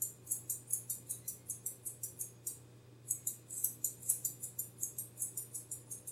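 Grooming scissors snipping rapidly through a Shih Tzu's coat, about five snips a second, in two runs with a short pause about two and a half seconds in.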